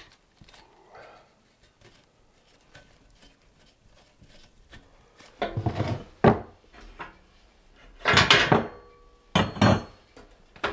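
Metal burner grates of a gas range clattering as they are lifted off and set down. Faint small clicks at first, then three loud bursts of clanking in the second half.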